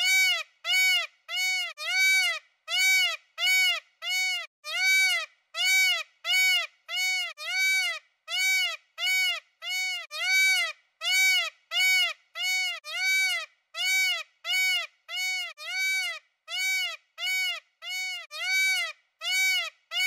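A peacock (Indian peafowl) calling in a long, even series of short honking calls, nearly two a second. Each call rises and then falls in pitch and is separated from the next by silence.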